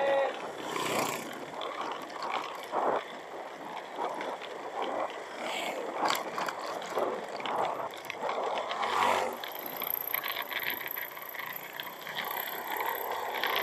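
Honda Vario scooter being ridden along a rough road: engine and road noise under a steady rush of wind on the microphone, with irregular bumps and scrapes.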